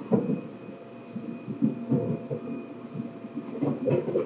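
Seibu 2000 series electric train heard from inside the car: muffled, irregular low thumping and rumbling, with a faint steady whine above it.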